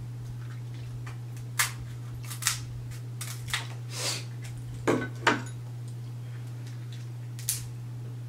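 Kitchen shears snipping through crab-leg shells, with the shells cracking: about eight sharp snips and cracks at irregular intervals, over a steady low hum.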